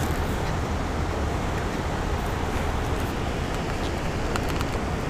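Steady rushing noise of fast-flowing creek water, heaviest in a low rumble and even throughout.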